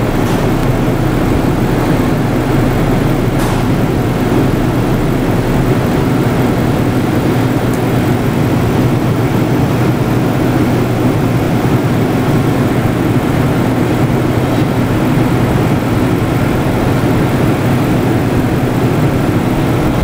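A steady mechanical drone with a constant low hum, loud and unchanging throughout.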